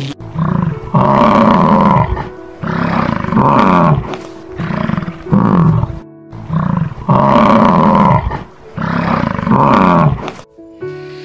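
Bison bellowing: a run of deep, roaring calls with short gaps between them, in two similar bouts of about five calls each.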